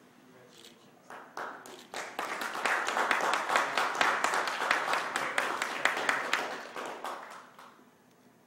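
Audience applauding. Scattered claps build to full applause about two seconds in, then die away near the end.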